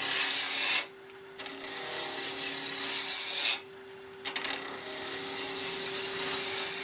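Turning tools cutting wood spinning on a wood lathe: a scraping hiss in three stretches, breaking off briefly about a second in and again about three and a half seconds in, over the lathe's steady motor hum.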